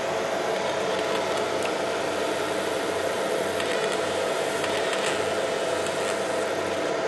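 Laser marking machine running as it marks a ball pen: steady fan-like whirring with one held mid-pitched buzz on top.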